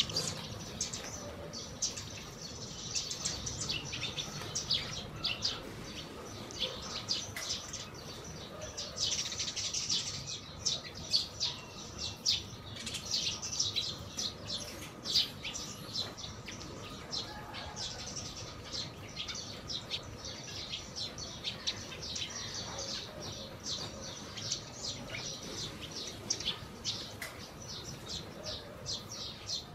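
A flock of house sparrows chirping incessantly while feeding, many short overlapping chirps in dense irregular bursts, with a few wing flutters as birds hop and jostle.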